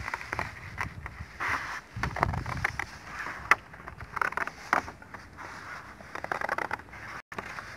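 Scissors cutting through a large sheet of thick paper: an irregular run of crisp snips with the paper crackling, and a couple of sharper clicks in the middle.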